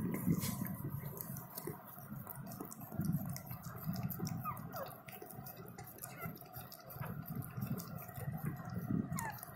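Mother dog licking and nuzzling a newborn puppy: irregular wet licking clicks and soft thumps, with a few brief faint squeaks from the puppy.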